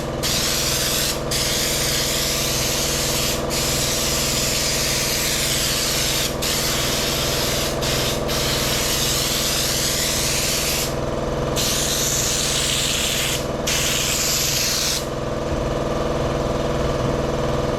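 Air spray gun hissing as it sprays Raptor Liner bed-liner coating, in long passes broken by brief trigger releases, with the spraying stopping about three-quarters of the way through. A steady machine hum runs underneath.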